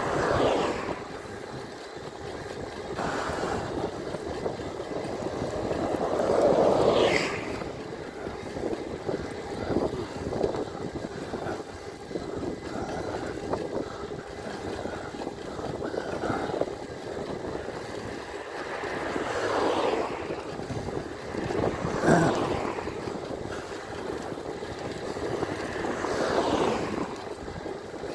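Cars passing on the road several times, each a swell of engine and tyre noise that falls in pitch as it goes by, the loudest about seven seconds in. Steady wind noise on the microphone throughout.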